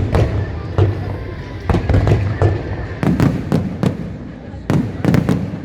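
Fireworks bursting overhead in quick, irregular succession: about a dozen sharp cracks and booms over a continuous low rumble.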